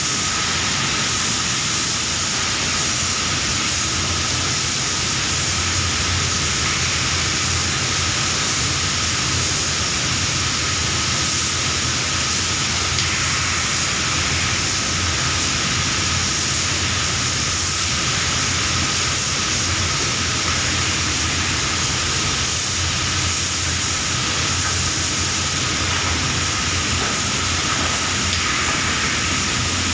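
Steady hiss of an air spray gun laying a clear lacquer coat, over a constant low hum of spray-booth machinery.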